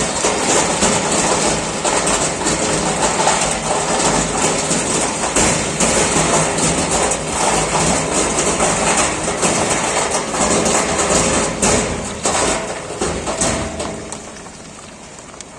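Caterpillar 140GC motor grader's diesel engine running loud, with rattling and scraping noise mixed in, then quietening near the end.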